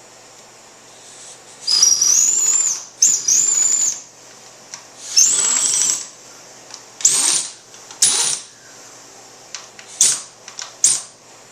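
Cordless power driver spinning bolts down in seven bursts, three of about a second each and then four short blips, its motor whine rising as each burst starts. The bolts are the fork clamp bolts being run down snug ahead of torquing.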